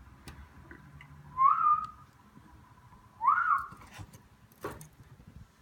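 Two short whistles about two seconds apart, each sliding up in pitch and then holding briefly, followed by a few small clicks.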